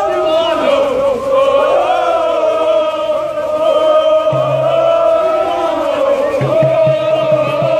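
Crowd of football supporters chanting a song together in unison, loud and sustained. A quick, regular low beat comes in near the end.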